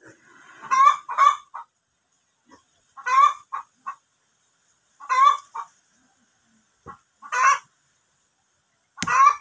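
A chicken calling in short clucks, one or two at a time, every one to two seconds, with a sharp knock near the end.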